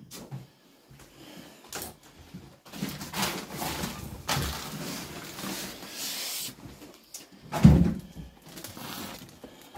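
Footsteps and scuffing with rustling handling noise while walking through a small room, and one loud low thump about three-quarters of the way in.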